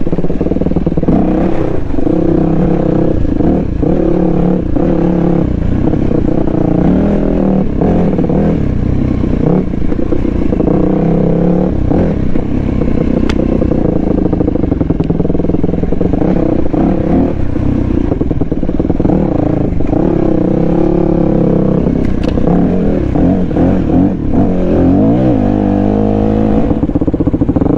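Dual-sport motorcycle engine running as the bike is ridden along a rough trail, its pitch rising and falling with the throttle, with occasional knocks and clatter.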